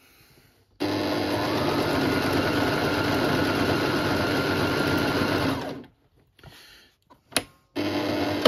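Electric sewing machine stitching a seam in a cushion cover. It starts about a second in, speeds up, and runs steadily for about five seconds before stopping. After a sharp click it starts again near the end.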